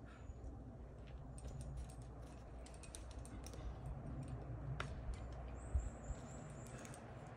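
Faint scattered clicks and taps of a rock climb in progress, from the rope, gear and the climber's hands and shoes on limestone, over a steady low rumble, with a louder thump about two-thirds of the way through.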